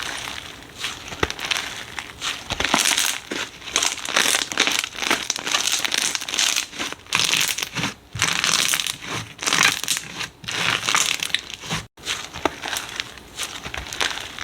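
Slime being squeezed and kneaded by hand: a dense crackling, crinkling sound with small pops, swelling and easing in repeated bursts, with a momentary gap about twelve seconds in.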